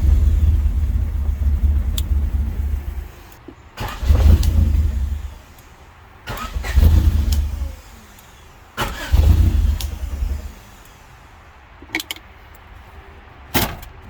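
1988 Honda Civic wagon's four-cylinder engine turned over by its starter in four separate cranking attempts: one of about three seconds, then three of about a second and a half, with pauses between. A few sharp clicks follow near the end.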